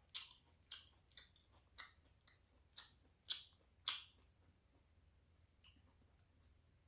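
Close-miked mouth sounds of someone chewing tteokbokki rice cakes: about eight wet smacking clicks, roughly two a second, that stop about four seconds in.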